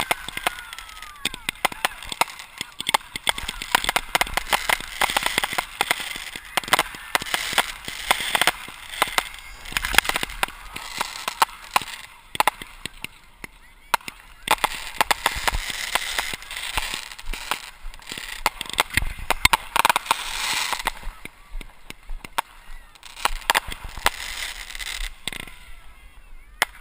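Aerial fireworks going off close by: a dense, continuous crackle of many sharp cracks and pops from bursting shells.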